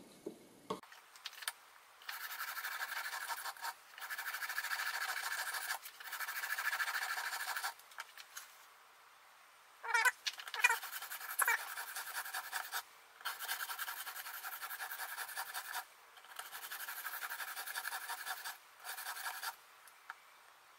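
A coarse 120-grit Edge Pro Apex stone scraping in long strokes, each about two seconds, along the edge of a Bahco Companion hunting knife. It is regrinding the chipped edge back to 21 degrees. About ten seconds in there are a few short squeaks.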